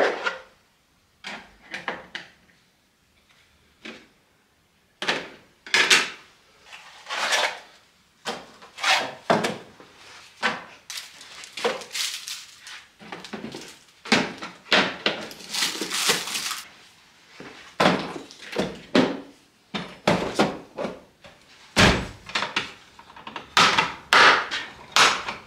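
Irregular hard-plastic clacks, knocks and scrapes of a Milwaukee Packout toolbox system being handled as its dividers are pulled out, with a short quiet pause near the start.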